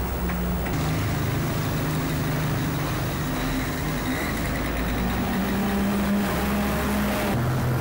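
City bus engine running as the bus drives past close by, a steady low hum that shifts a little in pitch, over the general noise of street traffic.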